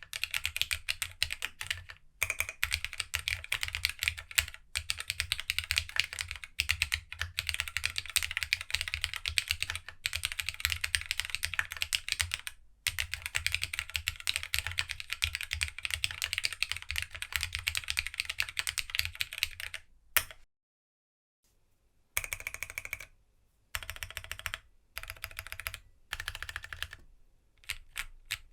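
A GeonWorks W1-AT mechanical keyboard, plateless with no foam and fitted with GSA-profile Retro Highlight keycaps, being typed on in a fast, continuous run of keystrokes. After a short silence about 20 seconds in, single keys are pressed in separate short bursts.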